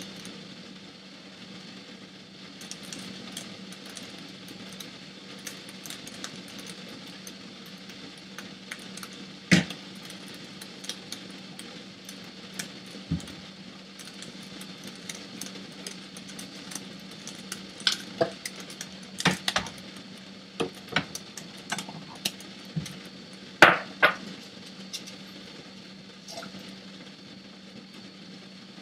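Scattered clinks and knocks of metal kitchen utensils against a wok and dishes, a few at a time, over a steady background hum.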